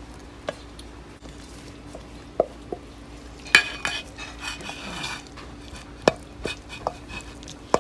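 A spoon scraping and knocking against a stainless steel mixing bowl while guacamole is scooped out into a ceramic dish. There are a handful of sharp clinks, the loudest about three and a half seconds in, where the bowl rings briefly.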